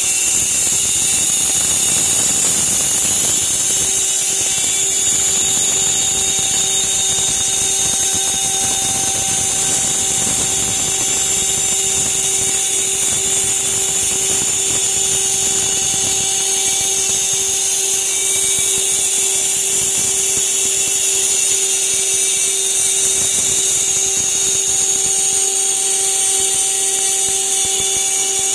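CNC router spindle milling aluminium plate: a loud, steady high-pitched whine and hiss with a constant lower tone underneath, unbroken throughout.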